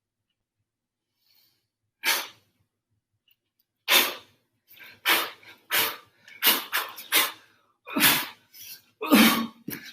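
A series of about a dozen sharp, forceful breath exhalations, of the kind made with each punch or kick in kickboxing training. They start about two seconds in and come irregularly, closer together toward the end.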